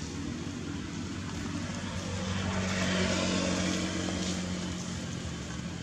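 A motor vehicle's engine hum that swells in loudness to a peak about halfway through and then fades, as of a vehicle passing by.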